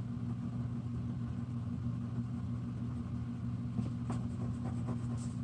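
Steady low hum in the room, with a few faint scratches about four seconds in.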